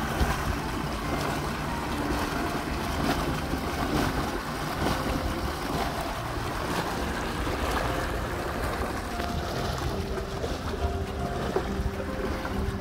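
Farm irrigation pump outlet discharging a strong flow of water into a concrete channel: a steady, unbroken rush of gushing water.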